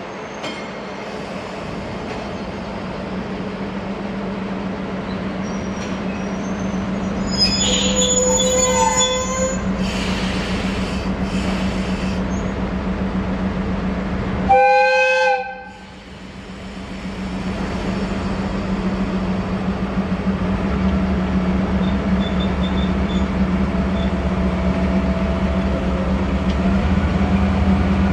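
A locomotive hauling a freight delivery of new train cars passes with a steady low hum, sounding its horn twice: a longer blast about eight seconds in and a shorter, louder one about halfway through. A deeper rumble builds near the end.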